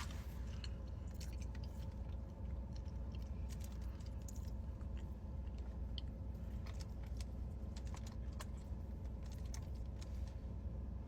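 A person chewing chicken, with scattered small wet clicks and smacks over a steady low hum.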